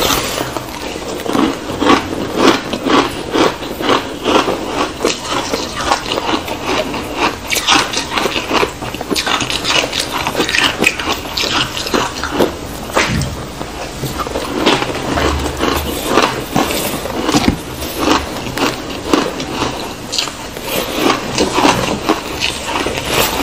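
Crunching bites of frozen ice blocks dusted with matcha powder: dense, irregular crackling and crunching as the ice is bitten and chewed, several bites overlapping.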